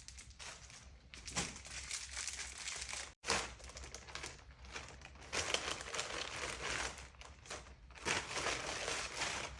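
Plastic clothing packaging being handled and opened, crinkling in irregular bursts, with a brief break about three seconds in.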